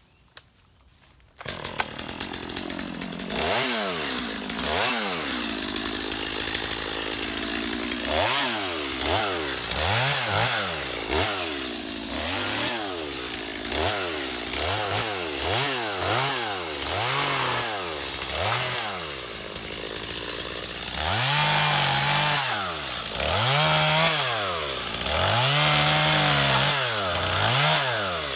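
Stihl MS250 two-stroke chainsaw running while cutting brush and small saplings. It comes in suddenly about a second and a half in, then revs up and drops back over and over, about once a second, with slower, louder revs near the end.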